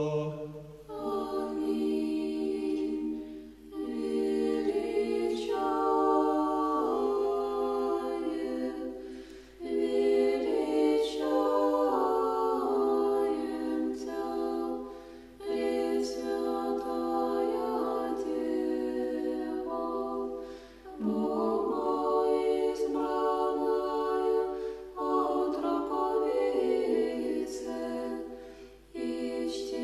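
Unaccompanied church choir singing slow Orthodox chant in held chords. The phrases last about five to six seconds, with short breaks between them.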